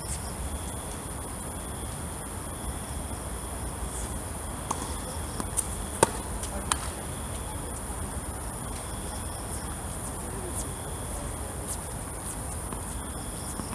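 Tennis ball struck by rackets and bouncing on the hard court during a rally: a few sharp pops about five to seven seconds in, the loudest near six seconds. Underneath, steady high-pitched chirring of insects.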